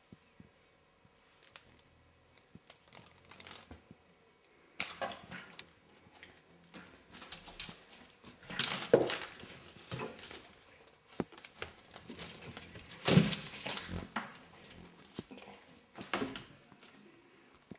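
A cat scrambling after a moth: irregular rustling, bumps and clatters in bursts, with the loudest knocks past the middle.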